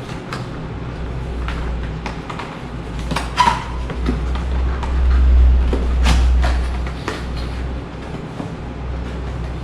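Gimbal packaging being handled and unpacked: scattered clicks, knocks and rustles of box and packing parts, the sharpest a little over three seconds in, over a low rumble that swells in the middle.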